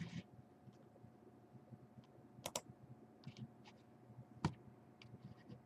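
A few faint, scattered clicks of computer keys, with a quick double click about two and a half seconds in and a single sharper click about four and a half seconds in.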